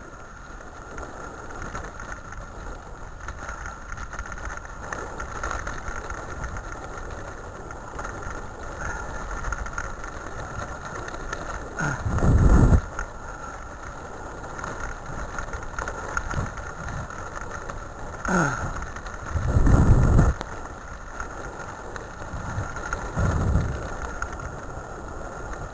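Wheels of a dog-drawn training rig rolling over a dirt and gravel track, a steady rumble and rattle. Heavy low thumps from jolts or wind on the microphone come once around the middle and twice near the end.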